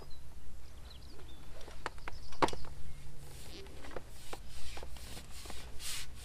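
A long carbon fishing pole being handled and shipped back: a few light knocks, then a run of short rasping sweeps about twice a second as the sections slide back.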